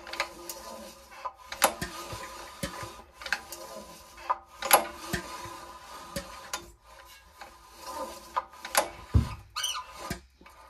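Recoil pull-start cord on an old Honda generator engine pulled several times, about one rasping pull every second and a half, spinning the engine over without firing because the spark plug is out. A short rising squeak comes near the end.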